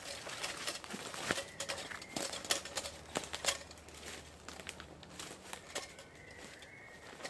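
Footsteps through woodland undergrowth and leaf litter, with leaves and twigs crackling underfoot; the steps are busiest in the first few seconds and thin out as the walker stops.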